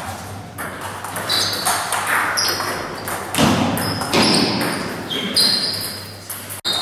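Table tennis rally: the ball striking the bats and the table, about ten quick knocks, several with a short high ping.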